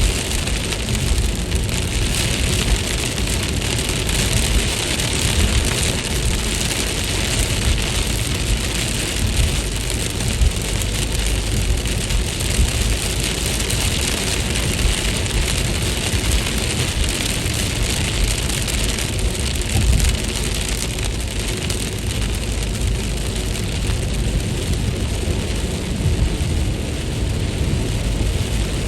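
Steady rain falling and pattering on surfaces, with a continuous low rumble underneath.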